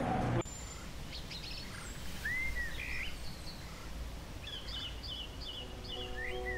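Outdoor ambience with birds chirping and calling: scattered short chirps and a few curved calls, then a quick run of chirps. Soft music comes in near the end.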